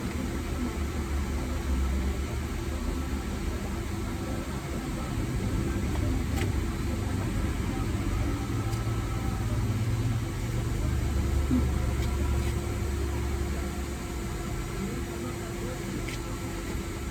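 Vacuum cleaner motor running steadily with a low rumble and a few light clicks.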